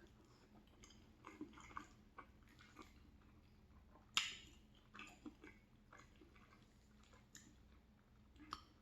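Quiet chewing of a mouthful of macaroni and cheese: scattered soft, wet mouth clicks and smacks, with a sharper click about four seconds in.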